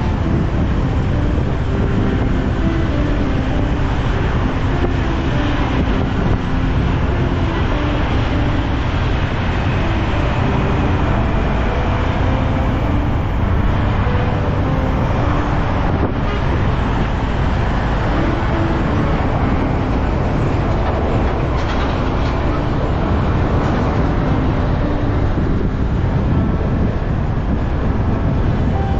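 Steady wind rush on a helmet-mounted camera's microphone while riding a motorbike, mixed with road and traffic noise.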